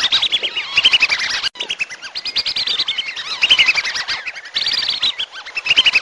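A flock of whistling ducks (belibis) calling: fast runs of short, high whistled notes that rise and fall in pitch, several birds overlapping and repeating phrase after phrase, with a split-second break about one and a half seconds in.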